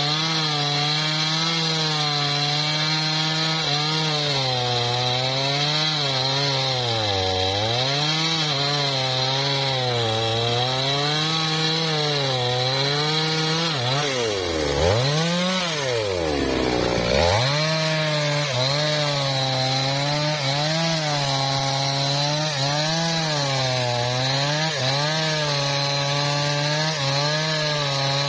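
Two-stroke chainsaw cutting through a teak log at high revs, its engine note sagging and recovering again and again as the chain loads up in the wood. About halfway through the revs drop steeply, almost to idle, then climb back up to full speed.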